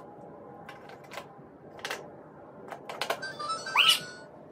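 Toy cash register: sharp plastic clicks as it is handled and its buttons pressed, then, about three seconds in, a short electronic jingle of stepped beeps with a rising sweep.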